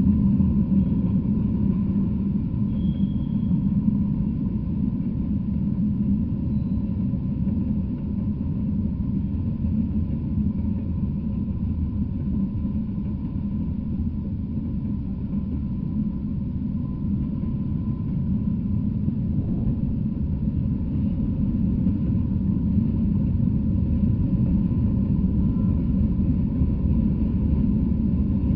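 Freight train of hoppers and flatcars rolling past, a steady low rumble of steel wheels on the rails that swells slightly near the end.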